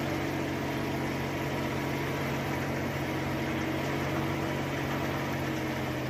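Tractor-mounted blower sprayer running, its fan blasting spray mist: a steady mechanical hum under an even rush of air.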